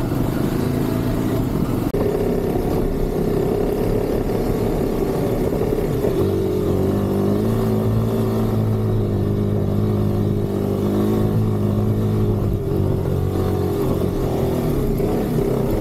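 2024 Kawasaki KLX 300 single-cylinder four-stroke dirt bike engine running steadily under throttle while riding a dirt trail at about 13 to 15 mph. The engine note gets stronger about six seconds in.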